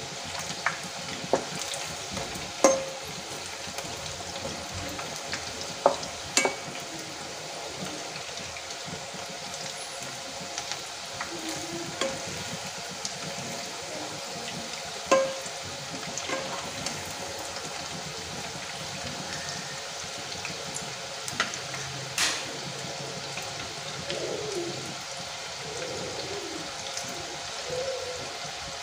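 Hot oil sizzling steadily around battered fritters deep-frying in a kadai, with several sharp clinks of a perforated metal skimmer against the pan as they are stirred and turned. They are being fried until they turn red and crisp.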